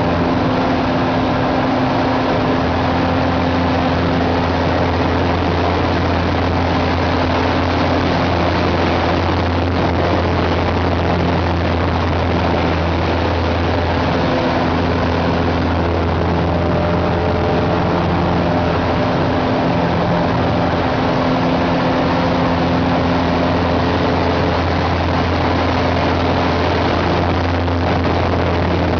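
An 8KCAB Super Decathlon's four-cylinder Lycoming engine and propeller drone steadily, heard from inside the cockpit during aerobatics. The pitch shifts a little at a few points as the power changes.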